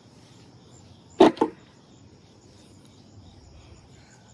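Two sharp knocks in quick succession, a little over a second in, as tent parts are fitted together or pushed into place. Insects chirr steadily in the background.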